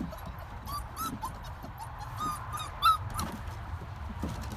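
A dog making a series of short, high-pitched whines, one after another, the loudest about three seconds in.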